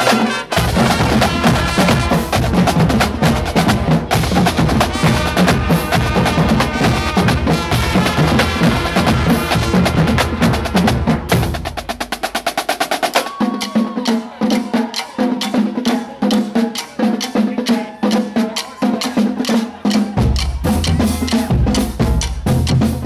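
Marching band drumline of snare drums and bass drums playing a fast, loud cadence. About halfway through, the deep bass drum hits drop out for several seconds and come back near the end.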